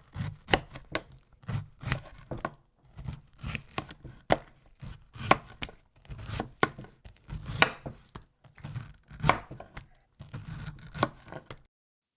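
Kitchen knife chopping on a cutting board, a long run of irregular strokes, a little under two a second, each a sharp knock with a dull thud, stopping near the end.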